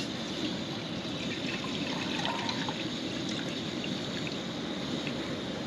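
Water being poured into a canteen cup, a steady trickling pour.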